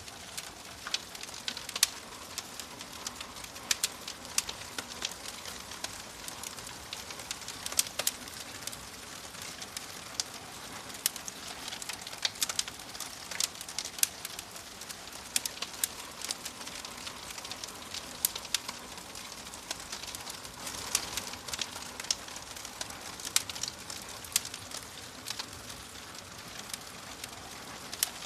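Wood fire in a fireplace crackling: irregular sharp pops and snaps over a steady soft hiss.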